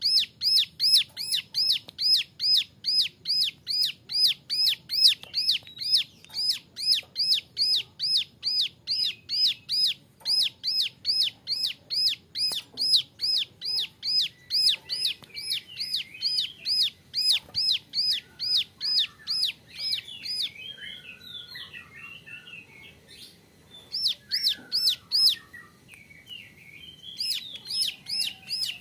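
Young ciblek gunung (a prinia) singing: a fast string of sharp, identical hooked notes, about three a second, which breaks about two-thirds of the way through into varied twittering, with a short run of the repeated notes again near the end.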